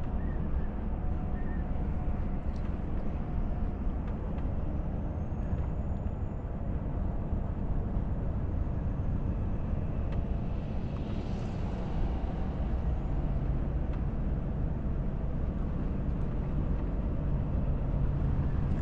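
Cab interior of a Volvo FH truck cruising at about 80 km/h: a steady low engine drone and road rumble.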